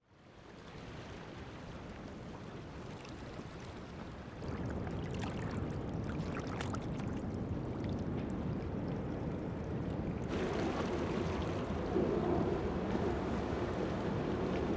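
Steady rush of flowing water, fading in about half a second in and growing louder about four and a half seconds in.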